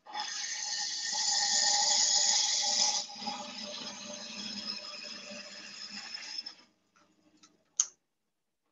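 Wood lathe running with a gouge cutting the spinning beech blank: a hiss of shavings over the lathe's steady whine, loudest for the first three seconds and then lighter. The sound cuts off about six and a half seconds in, and a single sharp click follows.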